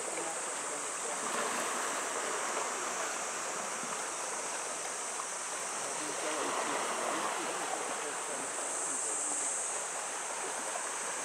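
Sea water washing steadily along the shore, with no separate strikes or breaks, over a steady high-pitched hiss.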